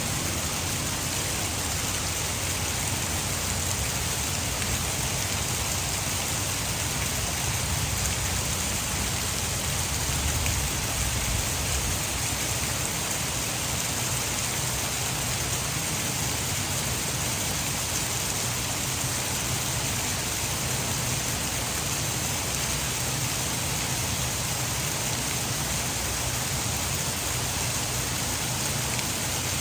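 Heavy rain falling steadily, a dense even hiss, blended with the rush of water pouring over a hydroelectric dam.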